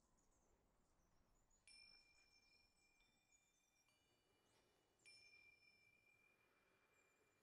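Very faint soundtrack music of soft chime tones: two struck chimes about three seconds apart, each ringing on as a high held note, with a further higher note joining briefly in between.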